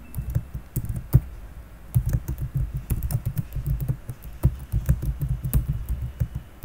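Typing on a computer keyboard: a run of quick keystrokes with a short lull early on, then steady typing again.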